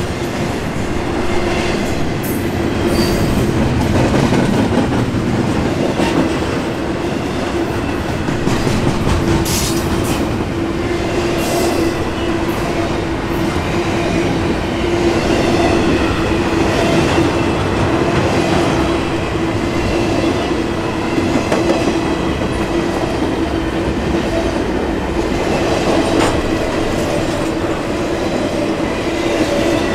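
Double-stack intermodal container cars rolling past at speed: a steady rumble and clatter of steel wheels on the rail, with a steady droning tone underneath and a few sharp clanks.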